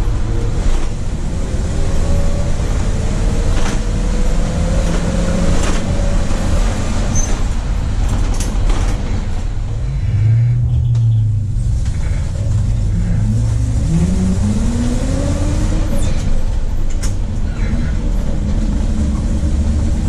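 1982 Chevy Blue Bird school bus's 366 V8 engine and road noise heard from the driver's seat while driving, with scattered rattles and clicks from the body. About ten seconds in it eases to a low steady hum, then the engine pitch rises twice as the bus accelerates through a gear.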